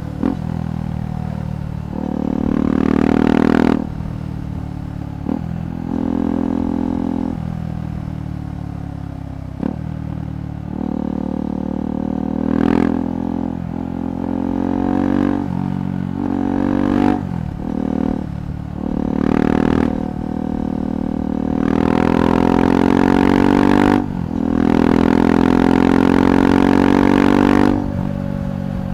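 KTM 390 Adventure's single-cylinder engine through a Red Rooster aftermarket exhaust, accelerating repeatedly through the gears. The revs rise and fall, with brief dips at each shift, and there are longer loud pulls near the end.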